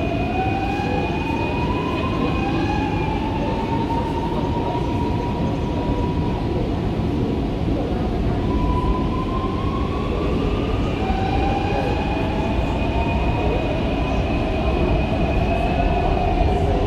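Electric multiple-unit commuter train heard from inside a passenger car as it pulls away and gathers speed: a steady rumble of wheels and running gear. Over it the electric traction motors whine, the pitch rising near the start and rising again from about halfway through.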